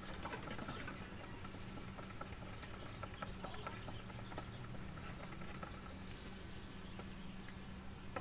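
Hand sanding of a car's painted panel with a small sanding block: a faint, scratchy rubbing made of many small ticks, flattening runs in the clear coat. A steady low hum runs underneath.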